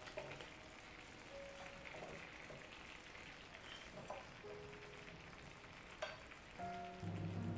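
Faint sizzling of food frying in a pan, with a few light clicks of a utensil. Quiet background music plays throughout and grows louder near the end.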